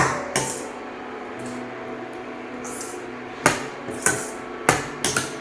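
A spoon knocking and clinking against a cooking pan several times while stirring gravy, the strikes coming irregularly and bunched toward the end, over soft background music.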